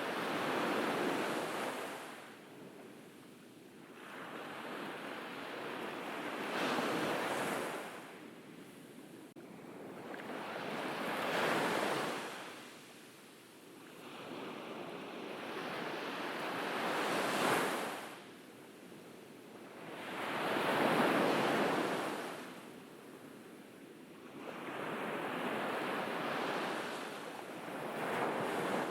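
Ocean waves breaking on a beach. About six swells of surf come one every four to five seconds, each rising and falling away over a few seconds.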